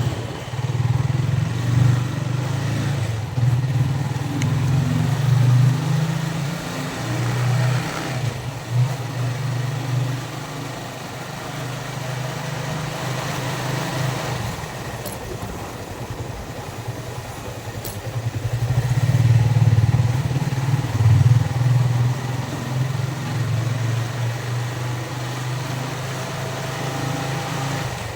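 Yamaha Vixion's single-cylinder four-stroke engine running under way, heard from the rider's seat with road and wind noise. The engine note eases off for several seconds in the middle, then picks up again as the bike pulls.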